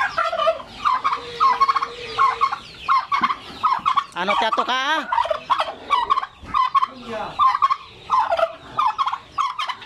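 A domestic turkey tom in strutting display gobbles once, a rapid warbling rattle about four seconds in. Short, repeated calls from the surrounding poultry flock go on around it, about two a second.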